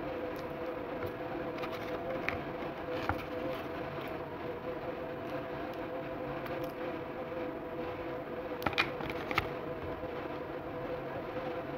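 A steady mechanical hum, with a few short faint clicks, two of them close together about nine seconds in.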